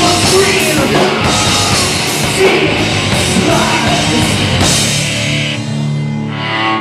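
A rock band playing live at full volume, heavy-metal style, with drums and distorted guitars, through the last bars of a song. About five and a half seconds in, the drums drop away and a held, ringing chord sustains as the song ends.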